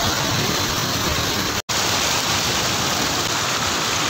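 Water pouring over a low concrete weir: a steady rushing noise that cuts out for an instant about a second and a half in.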